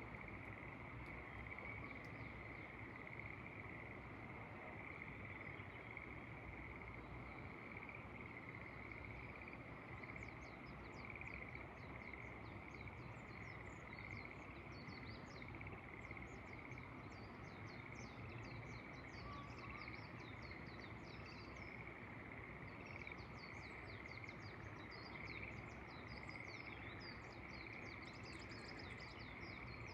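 Faint chorus of frogs in the rice paddies, a steady unbroken calling, with many rapid high chirps joining in about ten seconds in.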